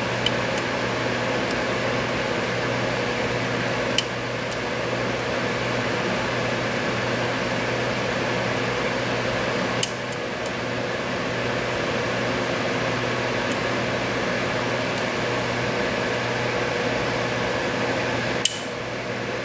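Steady machine hum with a constant low tone, like a fan running in a small room. A few isolated light clicks from pick tools working the pins of a Medeco M3 high-security lock cylinder sound over it.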